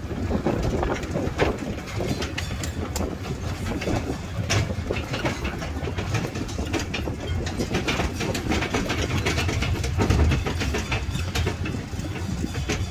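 Open carriages of a road-going tourist train rattling and knocking as it drives over paving, over a steady low rumble from its motor and wheels.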